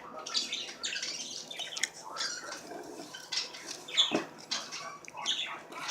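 A person eating chicken, with irregular chewing and mouth sounds coming in quick, uneven bursts.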